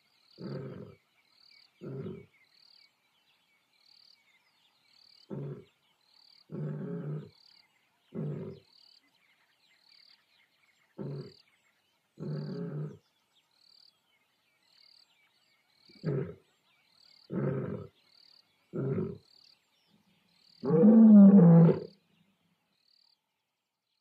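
Lion calling: a string of short, low grunts a second or a few seconds apart, then one longer, louder roar about 21 seconds in. Behind it, a faint high chirp repeats about once a second.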